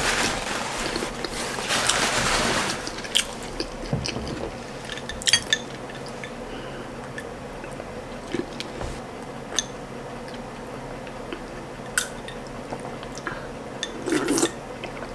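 Close-up eating sounds: wet chewing and mouth clicks from someone eating ndole with soft boiled plantain. It begins with a stretch of louder, noisier chewing, then goes on as scattered smacks and ticks.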